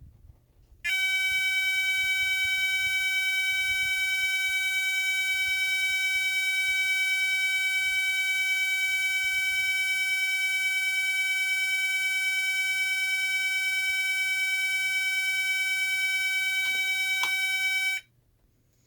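Federal Signal SLM800R electronic signal sounder sounding one of its alarm tones: a single steady, unbroken tone that starts about a second in and cuts off sharply near the end.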